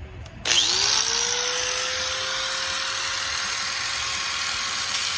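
Electric grinder with a cut-off wheel spinning up about half a second in, its whine rising and settling to a steady pitch, then cutting through the steel cross member with a loud, steady high-pitched hiss.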